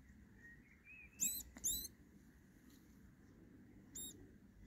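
A vole squeaking while cornered by a cat: short, very high-pitched squeaks, two close together about a second in and one more near the end.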